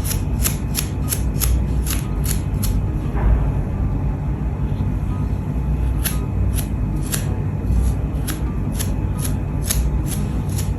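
Paint-loaded sponge dabbed quickly against the kettle's metal body, making light, crisp ticks about four a second in two runs, with a pause of a few seconds between them.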